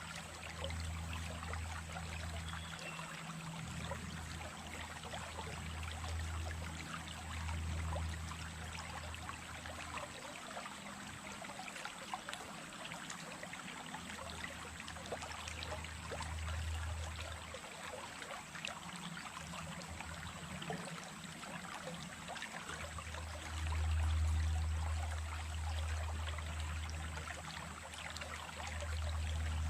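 Stream of running water splashing and trickling steadily. Under it runs a low rumble that comes and goes, swelling loudest about 24 seconds in.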